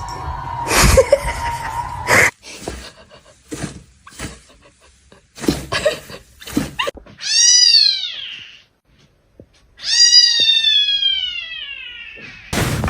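Kitten meowing: two long meows, one about seven seconds in and a longer one about ten seconds in that falls in pitch, after a run of light clicks and knocks.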